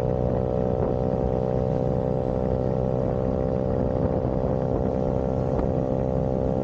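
Vespa scooter engine running at a steady speed: a loud, even drone that holds one pitch throughout. It starts and stops abruptly.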